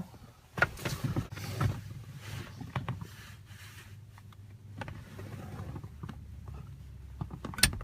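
Screwdriver levering at the airbag release catch behind a Volvo S40 steering wheel: scattered scraping and clicking of metal on plastic. A sharp click near the end as the catch lets go.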